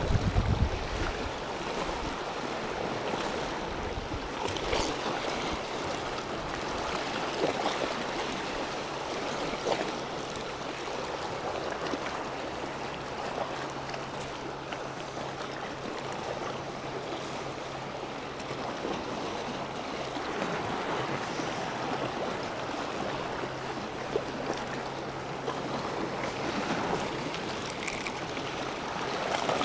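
Sea water washing against shoreline rocks: a steady, even rush, with a few faint knocks.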